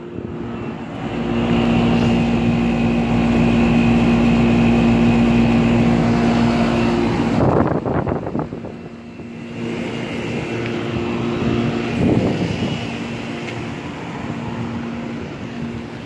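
Central air conditioner outdoor condensing units running: a steady electrical hum from the compressors over the rush of the condenser fans. About a third of the way in, a louder rushing surge briefly breaks the hum, and the hum comes back a second or two later.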